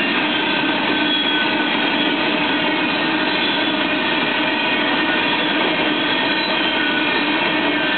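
Freight train of open hopper cars rolling past at close range, a steady, even noise of wheels on rail.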